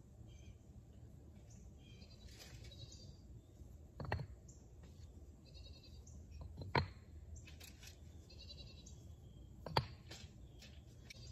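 Bricks being set down into pool edging, with three sharp knocks of brick on brick spread a few seconds apart. Animal calls come and go in the background.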